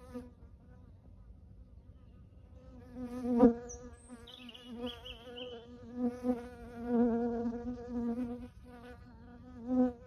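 A flying insect buzzing close to the microphone, its hum wavering in pitch as it moves about. A brief buzz comes at the start, then a longer one from about three seconds in, loudest around three and a half seconds, which stops just before the end.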